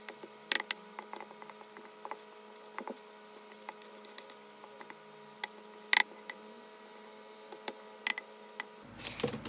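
Scattered sharp clicks and taps of kitchen utensils and bowls being handled, over a faint steady electrical hum, with a short rustling just before the end.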